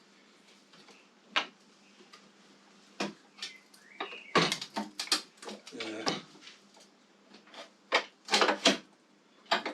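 Metal tools and motorcycle parts clinking and knocking in irregular, sharp clicks while a passing light is unbolted, with a busier cluster of clinks in the second half.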